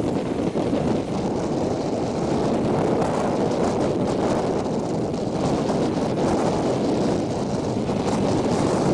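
Steady rush of wind on the microphone mixed with the running noise of a moving passenger train, recorded from an open coach window.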